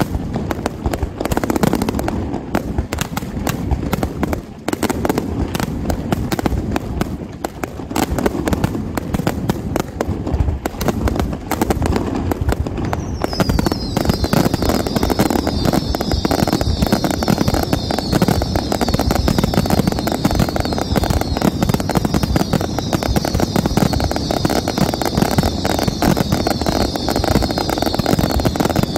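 Fireworks display: a dense, continuous barrage of rapid firework bangs and crackles. About halfway through, a steady high-pitched hiss joins in over the bangs.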